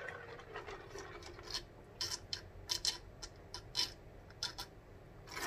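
A person drinking from a large glass jar: quiet, irregular swallows with small mouth and glass clicks.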